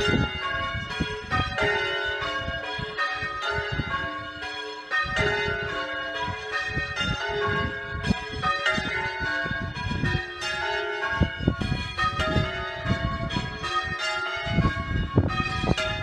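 Change ringing on a light ring of five church bells (tenor about 5 cwt in C#, cast by Mears and Stainbank in 1909), heard from outside the tower: the bells strike one after another in a steady rolling sequence.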